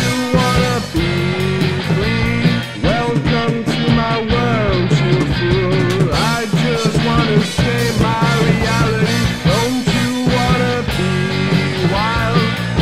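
Rock band playing: electric guitar, bass guitar and drum kit with steady drum hits, under a lead melody that bends up and down in pitch.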